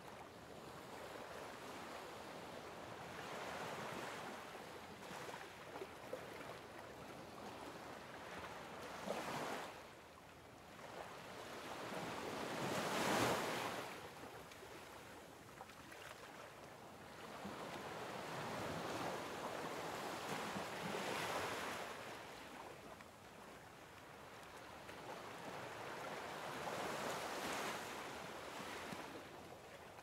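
Sea waves washing in, swelling and fading every few seconds, the loudest about thirteen seconds in.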